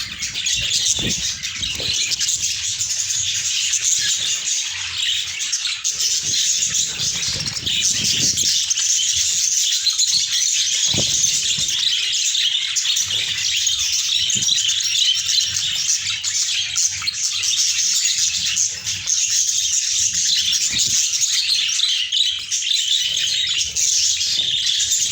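A flock of budgerigars chattering and warbling continuously, many birds calling over one another.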